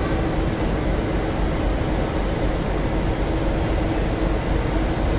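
Diesel locomotives idling at a station platform: a steady low diesel rumble with a constant hum, unchanging throughout.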